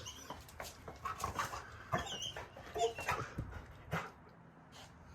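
Labrador retriever whimpering in a string of short whines, with scattered clicks and knocks.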